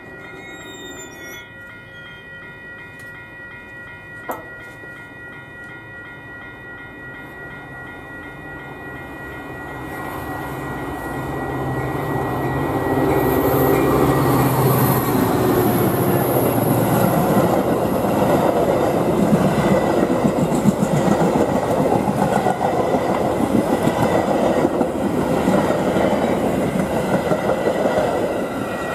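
Metra commuter train led by an EMD F40PH diesel locomotive approaching and passing: the sound builds from about a third of the way in, the locomotive's engine passes around the middle, then the rumble and clatter of the passenger cars rolling by, over steady ringing from the grade-crossing bells.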